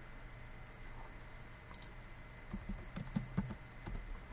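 A handful of computer keyboard keystrokes in quick succession, starting about halfway through, over faint room tone.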